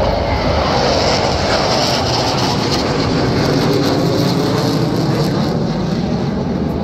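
Jet roar of Black Eagles T-50B trainer jets, each with a single turbofan, flying past in formation: a steady rushing roar whose higher hiss fades after about five seconds, leaving a lower rumble.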